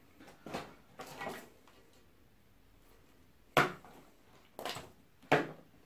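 Several knocks and clatters of objects being handled and set down on a work surface, the two sharpest and loudest about three and a half and five seconds in.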